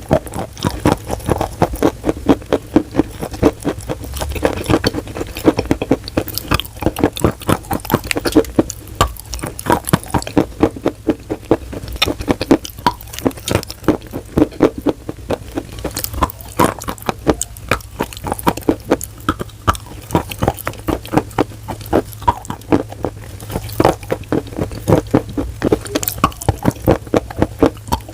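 Close-up chewing of wet chalk: dense, rapid wet crunching and crackling, many sharp clicks a second, coming in louder clusters.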